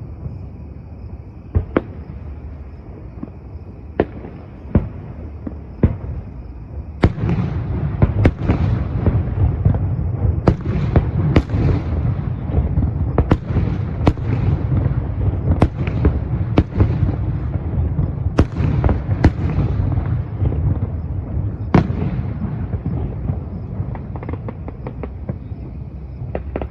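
Fireworks display: a few separate shell bursts, then from about seven seconds in a dense barrage of bangs over a continuous rumble, which thins out after about twenty-two seconds.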